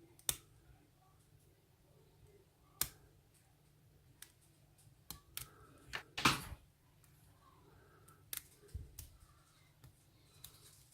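Lock pick and tension wrench working in a pin-tumbler padlock: scattered sharp metallic clicks as the pins are lifted and set one by one, with a short scrape of the pick in the keyway a little past the middle.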